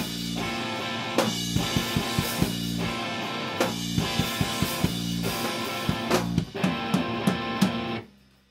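Rock music with a drum kit and guitar, steady chords over regular drum hits, cutting off abruptly about eight seconds in.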